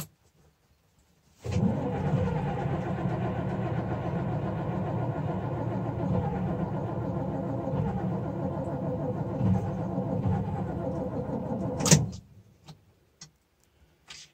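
Starter cranking the Åkerman H7Mc excavator's Volvo TD61ACE turbo diesel in a cold start. It turns steadily for about ten seconds without the engine catching, then cuts off suddenly with a click. This is a hard cold start, which the owner puts down to summer diesel in the tank, probably.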